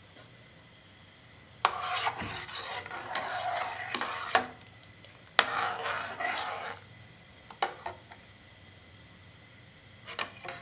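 Steel spoon stirring rice into hot milk in a stainless steel pot, scraping and clinking against the pot, in two bouts of a few seconds each that start with a sharp clink. A single clink follows, and light taps come near the end.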